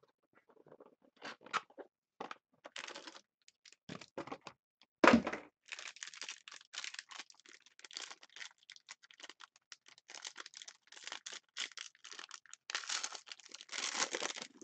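A sealed box of Playbook hockey cards being unwrapped and opened by hand: scattered crackles and clicks, a sharp thud about five seconds in, then a long run of dense crinkling and rustling of the wrapping.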